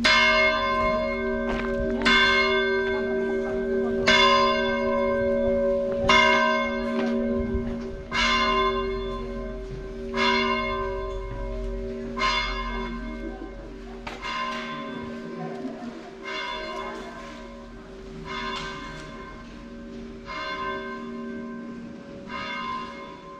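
A single church bell tolling, struck about twelve times at an even pace of roughly one stroke every two seconds, each stroke ringing on into a lingering hum. The strokes grow gradually quieter through the sequence.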